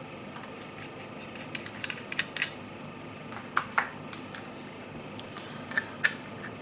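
Small hard parts of an Eleaf Melo 4 vape tank and a box mod being handled: scattered light clicks and taps with faint scraping, in a few clusters.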